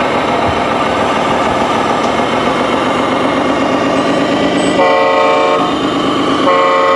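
Scale RC Kenworth semi truck's sound system playing a diesel engine running steadily, with two horn blasts, the first lasting under a second about five seconds in and a shorter one near the end.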